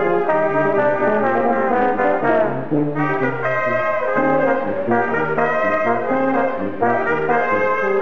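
Brass music with trombone- and trumpet-like held notes playing a tune for dancing.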